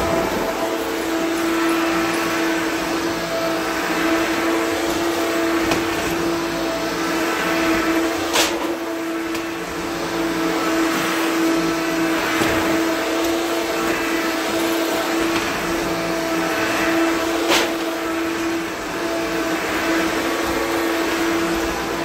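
Self-propelled vacuum cleaner running steadily: a constant motor hum of one pitch over a rush of airflow. Two sharp clicks about 8 and 17 seconds in.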